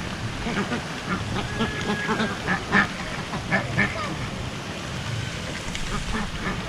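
A flock of ducks quacking, many short calls overlapping irregularly.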